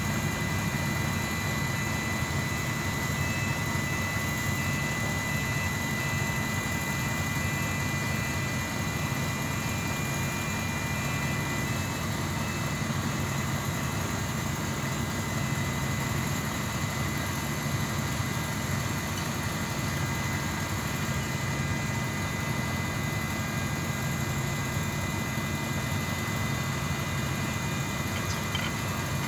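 Steady drone of an engine running without change, with a thin steady whine above it.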